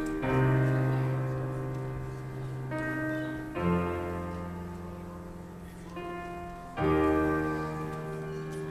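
Slow piano music: full chords struck about every three seconds and left to ring and fade.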